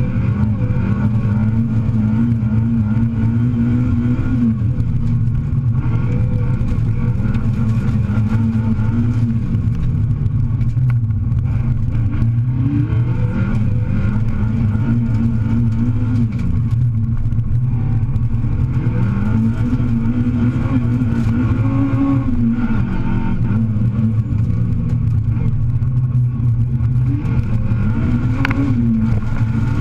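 Rally car engine heard from inside the cockpit, pulling away from the stage start and driven hard through the gears: its pitch climbs under full throttle and drops back at each gear change, again and again. A single sharp crack sounds near the end.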